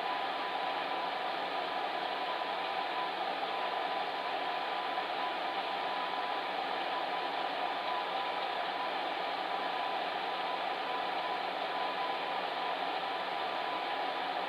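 Electric fan heater running steadily: a constant blowing hiss with a faint steady tone in it.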